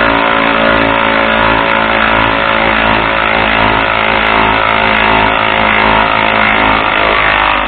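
Hypertough 3/8-inch cordless electric ratchet running continuously under load as it drives a lag bolt into wood: a steady, loud motor and gear whine.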